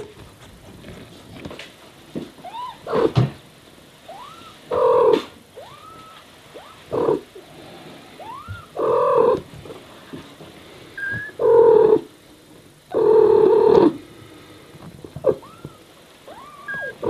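A mother cat calling to her newborn kittens with short, loud chirping meows about every two seconds. In between, the kittens answer with thin, high mews that rise and fall.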